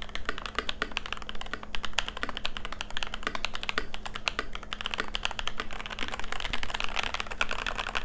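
Fast touch-typing on a Keychron V1 tenkeyless mechanical keyboard: Emogogo tactile switches on a steel plate with GMK keycaps, tray-mounted in an injection-molded ABS plastic case with silicone dampening. The result is a dense, steady stream of key clacks.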